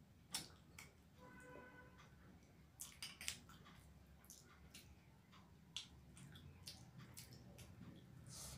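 Faint wet clicks and squishes of fingers mixing basmati rice with curry gravy on a banana leaf, with a cluster of sharper clicks about three seconds in.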